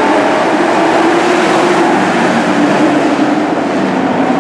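Engines of a pack of dirt-track racing trucks running together at race speed: a loud, steady drone whose pitch wavers slightly.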